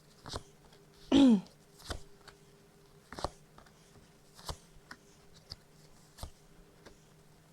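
A short woman's vocal sound with falling pitch, like a brief "hmm", about a second in, among scattered soft clicks and taps over a steady low hum.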